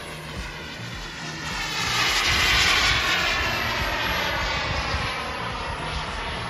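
Radio-controlled model jet flying past: a jet rush that swells to its loudest about two to three seconds in, then eases, with a thin high whine falling slowly in pitch.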